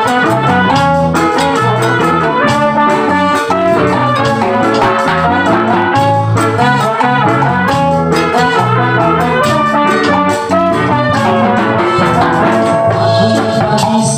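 A live band playing a reggae tune: trombone and brass lines over drums and a low, steady bass line, an instrumental passage with no singing.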